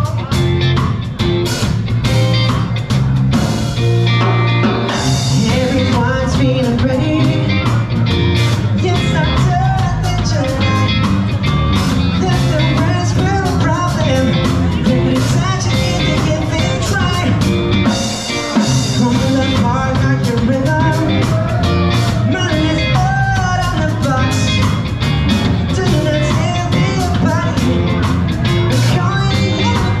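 Live rock band playing: a male voice singing into a microphone over electric guitar, bass guitar and drums.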